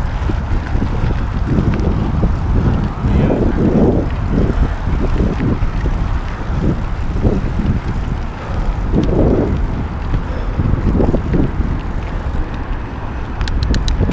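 Wind buffeting the microphone of a rider-mounted camera and tyres rolling over dirt as an electric mountain bike is ridden along a dirt track, with a few sharp ticks near the end.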